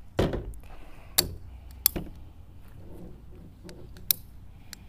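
Ratcheting PVC pipe cutter being squeezed shut on a 1/2-inch PVC pipe, giving a handful of sharp, irregular clicks as the blade is ratcheted through the pipe.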